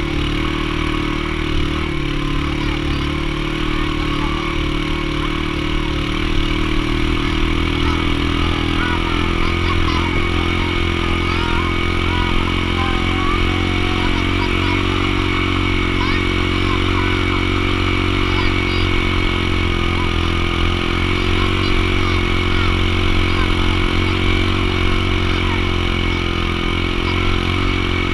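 Small engine of the vehicle towing a couch sled, running steadily under load after rising in pitch just at the start. Children's voices call out faintly now and then over it.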